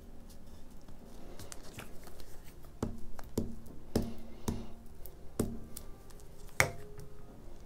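Paper collage pieces rustling under the hands, then a glue stick knocking and rubbing against paper on a wooden tabletop: about six sharp knocks in the second half, the loudest near the end.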